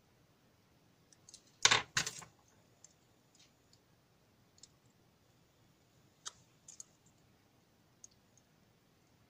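Alligator-clip leads and a small circuit board being handled, with two louder clicks close together about two seconds in, then scattered faint clicks and taps.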